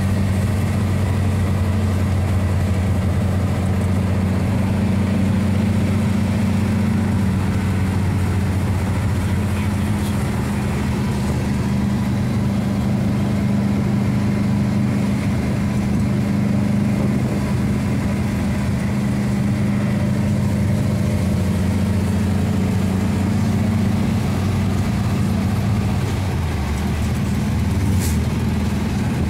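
Air-cooled VW Type 4 flat-four engine of a 1964 split-window bus running steadily under way, heard from inside the cab together with road noise. The engine note shifts slightly near the end.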